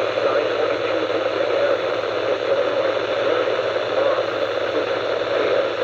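Steady hiss of radio static from a NOAA Weather Radio receiver.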